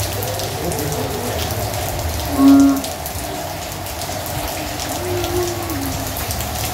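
Steady rain falling on a road and yard, a constant hiss of raindrops. About two and a half seconds in, one short pitched call sounds briefly over it, the loudest moment.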